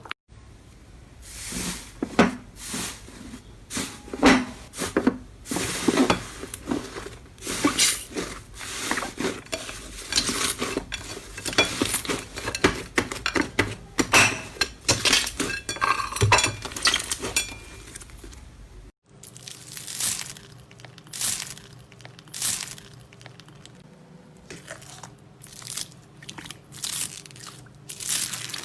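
Slime being squeezed, stretched and pressed by hand, giving dense irregular crackling, clicking and popping. About two-thirds of the way through it cuts off and a different slime starts, with sparser, softer squishes.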